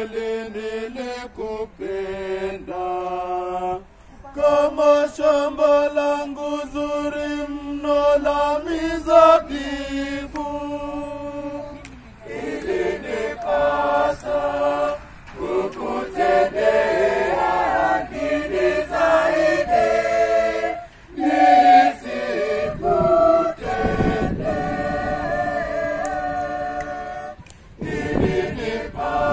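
Choir singing in several voice parts at once, phrase by phrase, with short breaks between the phrases.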